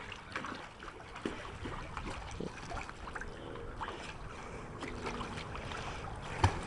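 Pool water lapping and sloshing softly as dogs swim and move through it, with small scattered splashes and one short sharp splash or knock near the end.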